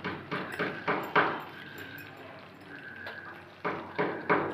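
A metal ladle knocking and scraping against a steel kadai of curry: a run of knocks in the first second, a quieter gap, then more knocks near the end.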